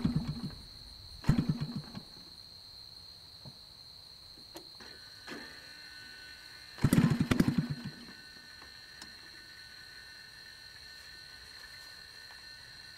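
50–60cc gasoline engine on a large RC aerobatic plane, hand-flipped by the propeller: three times it fires in a short rapid run of pops lasting about a second and dies without catching. A steady high insect drone runs underneath.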